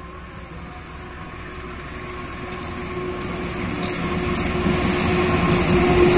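Diesel locomotive hauling a passenger train on approach, its engine drone with a steady low tone growing steadily louder as it nears. Faint regular ticks run through it.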